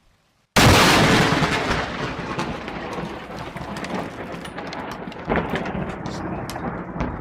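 A sudden, very loud thunderclap from a close lightning strike about half a second in, fading into a long rumble with scattered sharp cracks.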